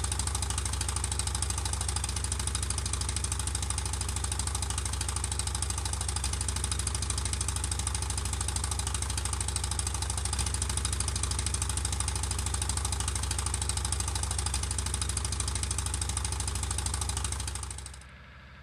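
A vehicle engine running steadily with road noise while driving on a dirt track. The sound drops away sharply near the end, leaving a quieter hum.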